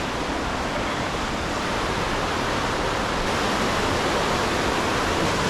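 River running high and fast after recent rain: a steady, loud rush of water, growing slightly louder toward the end.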